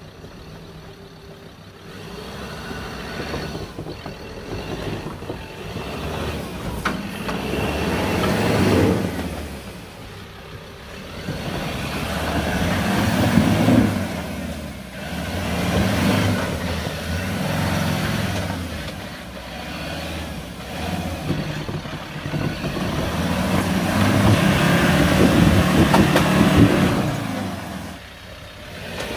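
Troller 4x4's engine revving in repeated surges under load as it crawls over deep ruts, the sound swelling and easing every few seconds, loudest near the end.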